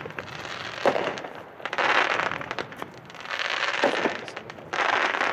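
A 25-shot, 350-gram consumer (1.4G) fireworks cake firing. Twice, about three seconds apart, a sharp thump as a shot launches is followed about a second later by a longer noisy burst as the shell breaks in the air.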